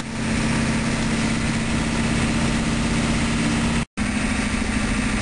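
Steady drone of a vehicle's engine and road noise heard from inside the cabin while driving, with a low steady hum throughout. The sound cuts out completely for a split second about four seconds in.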